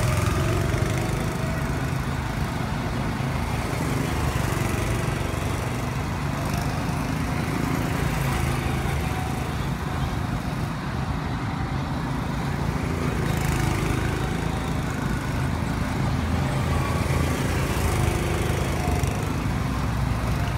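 Go-kart engines running steadily as karts drive around the track, a continuous small-engine drone.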